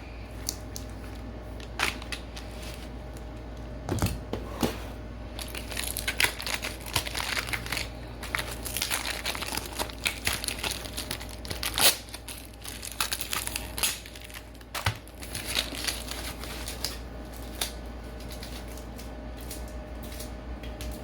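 Plastic packaging crinkling and rustling as it is handled, with scattered sharp clicks and taps, busiest through the middle. A steady low hum runs underneath.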